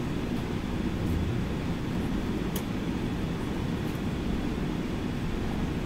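Steady low cabin rumble inside a Boeing 747-8 airliner as it taxis, from the engines and air conditioning, with a faint click about two and a half seconds in.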